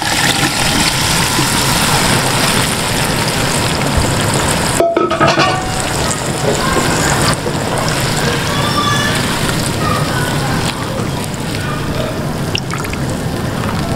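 A pot of chicken curry boiling hard, a dense steady bubbling hiss, as a load of boiled chickpeas is poured in at the start. The sound breaks off for a moment about five seconds in, then the boiling carries on.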